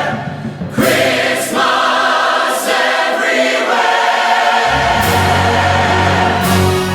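A large choir singing with orchestral accompaniment; a deep bass part comes in about two-thirds of the way through.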